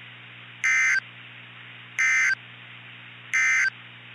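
Emergency Alert System end-of-message signal: three short bursts of shrill digital data tones, each about a third of a second long and about a second apart, marking the close of the warning message. A steady low hum and hiss run underneath.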